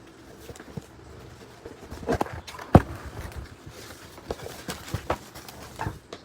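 Package being handled and opened: a series of knocks and bumps, the sharpest just under three seconds in, with light rustling of wrapping between them.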